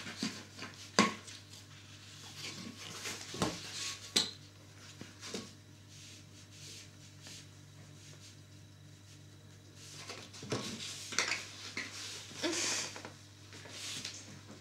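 A cat wrestling with a long modelling balloon, biting and kicking it: scattered rubbery rubbing and tapping noises, with sharp clicks about a second and about four seconds in and a busier spell of rubbing from about ten to thirteen seconds in.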